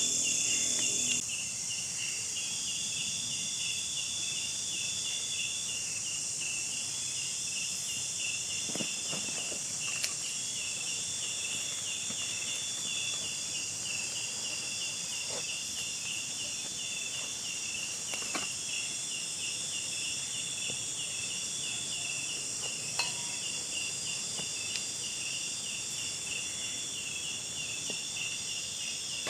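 Crickets and other insects in wooded ground: a high chirp repeated quickly and evenly over a steady high-pitched insect hiss. A few faint clicks or snaps sound now and then.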